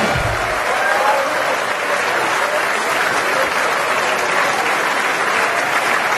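Audience applauding steadily in a large hall, with a burst of music ending about half a second in.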